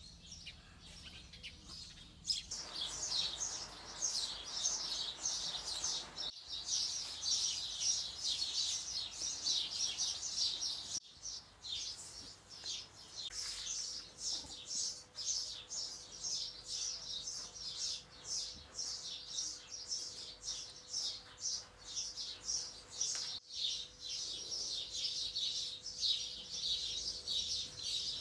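Many small birds chirping: a dense, continuous run of quick high chirps that breaks off briefly three times. A faint steady hum sits under it from about halfway on.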